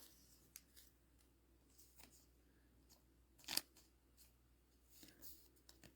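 Faint handling of trading cards: a few soft snaps and slides of cards being flicked through and squared up, the sharpest about three and a half seconds in.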